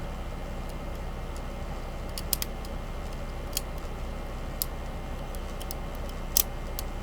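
Small, sharp metallic clicks of a lock pick working the pins in the keyway of a Kryptonite 850434 disc padlock under tension, coming irregularly: a few together about two seconds in and the loudest, a quick double click, near the end. Under them runs a steady low hum.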